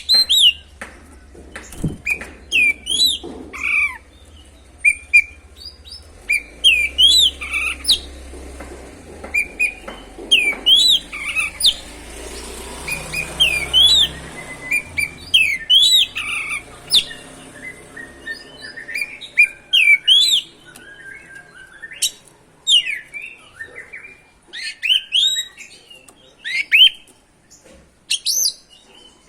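Oriental magpie-robin (kacer) singing continuously: a rapid, varied string of short whistled notes and chirps that sweep quickly up or down in pitch, delivered in bursts with brief pauses.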